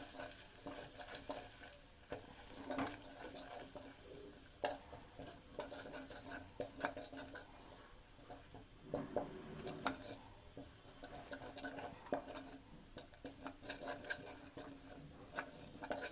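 Gram flour (besan) being stirred and roasted in ghee in a frying pan, the utensil scraping and clicking against the pan at an uneven pace.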